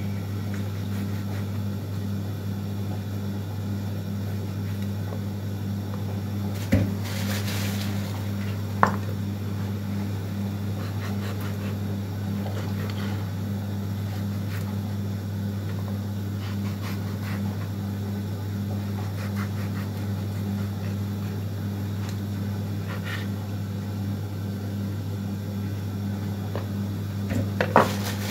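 A steady low hum, with a few sharp knocks of a knife on a wooden cutting board as skin is trimmed from a raw trotter. There is a clatter near the end as the knife is set down on the board.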